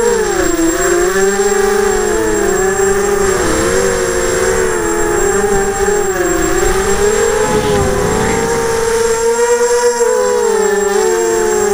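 Graupner Alpha250 racing quadcopter's brushless motors and propellers whining as it flies, the pitch gliding up and down with the throttle, recorded by the onboard camera. A brief rush of wind noise about eight seconds in.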